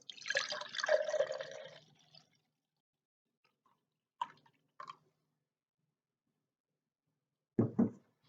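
Juice poured from a glass bottle into a drinking glass for about two seconds, followed by a couple of light clinks and then two heavier knocks near the end, like the bottle or glass set down on a table.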